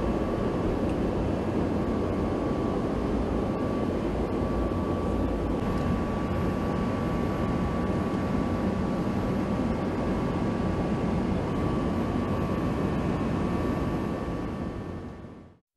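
Steady cockpit noise of a NATO E-3A AWACS aircraft, its engines and airflow heard inside the flight deck, with a faint steady whine in the first half. The noise fades out near the end.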